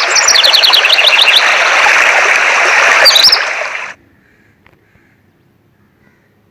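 Running river or stream water, a steady rushing, with small birds chirping over it: a quick run of rising chirps about half a second in and a couple more around three seconds in. The water sound cuts off abruptly about four seconds in, leaving only a faint background.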